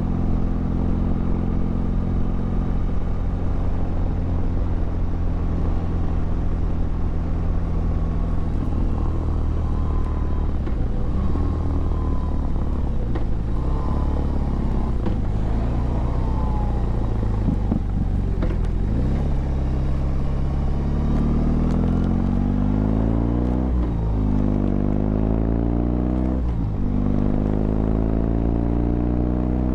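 The 1,802 cc boxer twin of a 2021 BMW R18 Classic motorcycle under way. It holds a steady note for several seconds, dips and recovers a few times in the middle, then rises three times in quick succession near the end, each rise cut off by a gear change.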